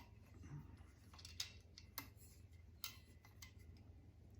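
Near silence with a few faint, scattered clicks over a low steady hum: threaded metal air-line fittings being handled and turned.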